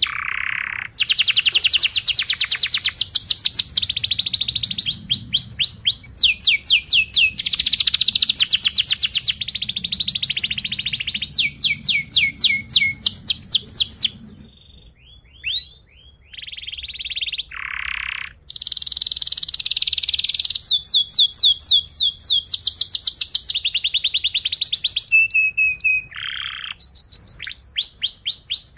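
Yellow domestic canary singing a long, high-pitched song of fast, tight trills (rolls) and chirps. About halfway through, the song thins to a few scattered notes for several seconds, then the full song resumes.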